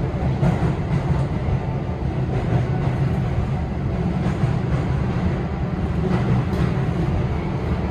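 Steady running noise inside a Keio 5000 series train car on the move: a low rumble of wheels and running gear.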